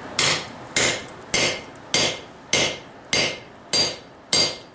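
Hammer driving a 1-inch hot chisel through red-hot steel plate on the anvil to cut a slit: eight even blows, about one every 0.6 seconds, each with a short metallic ring.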